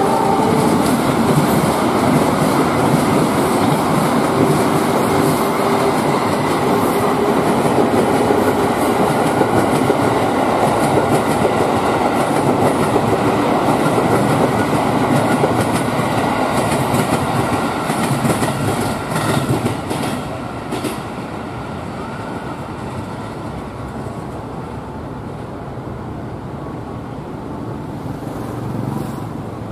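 Two trains passing at once, a KRL commuter electric train and the Argo Bromo Anggrek express's coaches, their wheels clattering over the rail joints in a loud, steady rush. The tail of a train horn is heard at the very start. The noise falls away about twenty seconds in as the trains move off.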